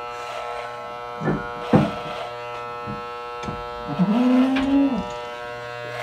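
Electric animal clippers running with a steady buzzing hum while shaving a goat's coat. A couple of short knocks come in the middle, and a brief low call that rises, holds and falls sounds about four seconds in.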